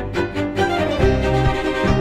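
Show music: bowed strings, violin to the fore, playing a classical melody over a beat.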